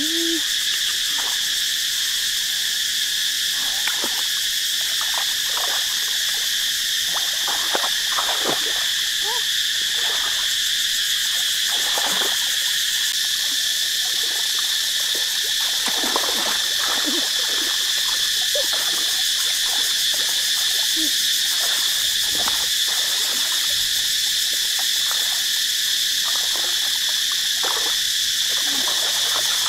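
Steady high-pitched chorus of frogs and insects, with irregular short clicks and knocks scattered through it.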